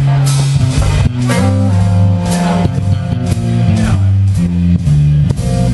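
Live rock band playing: electric guitar holding sustained notes over a moving bass line and drums with regular cymbal hits.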